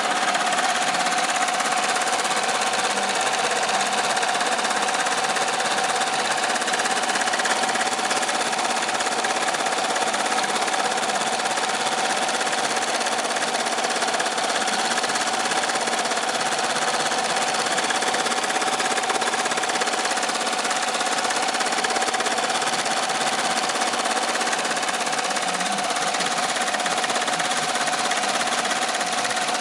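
2005 Amaya single-head, 16-needle commercial embroidery machine stitching a design: a fast, steady run of needle strokes with an even tone running under it.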